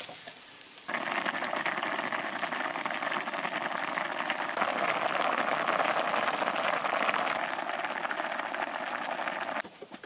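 A pot of cheonggukjang (fermented soybean paste stew) at a hard, bubbling boil, a dense crackling bubbling that starts abruptly about a second in and cuts off shortly before the end.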